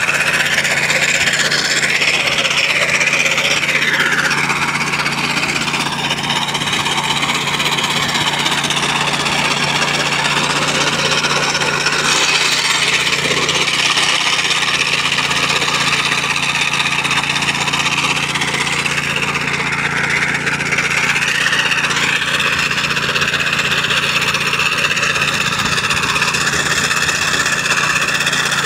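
Walk-behind sod cutter running steadily, its small petrol engine driving the cutting blade as it slices turf, a continuous mechanical noise that never lets up.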